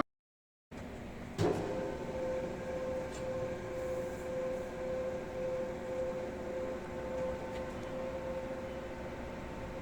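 CNC metal-spinning lathe running with a steady whine over a noisy mechanical bed. There is a single sharp knock about a second and a half in.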